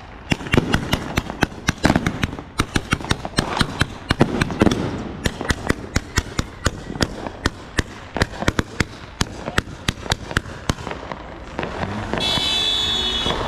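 Consumer fireworks going off in a rapid run of sharp cracks and pops, several a second. A high steady whistle sounds for about a second near the end.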